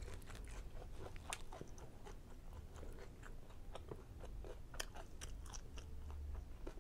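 A person chewing a mouthful of chicken fajita (sauced chicken with peppers and onions in a tortilla), a run of soft, irregular mouth clicks.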